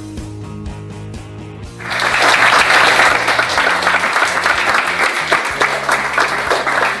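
Background music with a steady bass line, then about two seconds in a group of people breaks into applause, which carries on loudly over the music.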